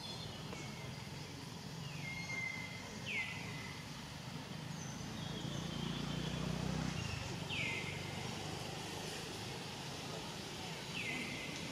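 High whistled animal calls, each sliding quickly down in pitch and ending in a short held note, repeated about four times with fainter ones between, over steady outdoor background noise and a low hum around the middle.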